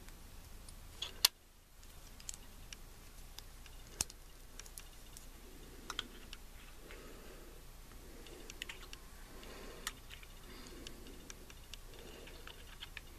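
Sparse small plastic clicks and taps as a small plastic figurine is handled and pressed onto its plastic display stand on a wooden shelf, with one sharp click about a second in the loudest, and faint handling rustle in between.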